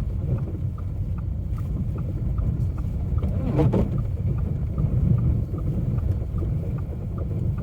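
Steady low rumble of a car driving, heard from inside the cabin, with a light regular ticking about two and a half times a second.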